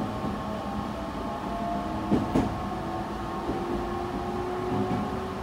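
Meitetsu 3100 series electric train running, heard from inside the passenger car: steady wheel-on-rail rumble under a motor whine whose pitch rises slowly, with two sharp knocks a little over two seconds in.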